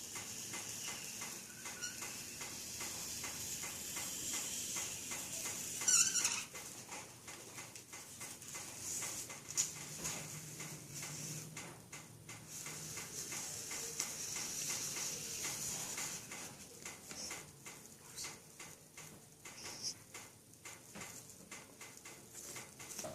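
Scratching and rustling of hands measuring and marking the sides of a cardboard box, with small clicks throughout. A brief high-pitched squeal comes about six seconds in.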